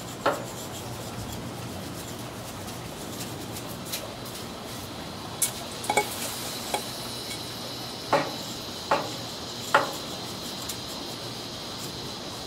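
Metal basting mop dabbing sauce onto pork ribs on a smoker's metal grate, giving sharp metallic clinks every second or so, with three in quick succession a little past the middle, over a steady low hiss.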